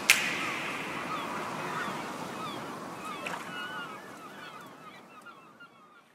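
Tail of the background music: a sharp hit just after the start, then a noisy wash dotted with short chirping glides that fades away to silence near the end.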